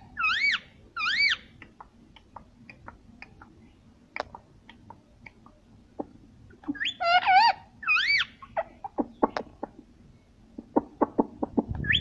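Male rose-ringed parakeet giving short, wavering calls in two bursts, one at the start and another about seven seconds in, with scattered sharp clicks and taps in between.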